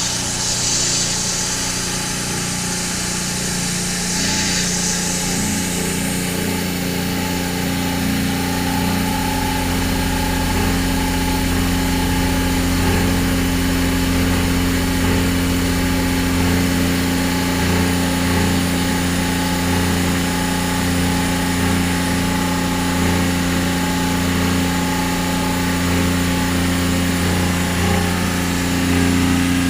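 Offshore Marine Laboratories reverse-osmosis watermaker running with a steady mechanical hum as its pressure is turned up, with a hiss in the first few seconds.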